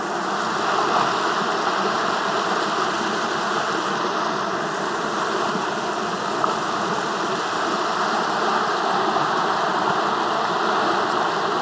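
Steady rushing of stream water flowing over rocks, an even, unbroken hiss.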